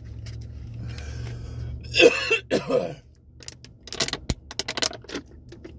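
A man coughs and clears his throat about two seconds in, then drinks from a plastic water bottle, the bottle giving a run of sharp crackling clicks.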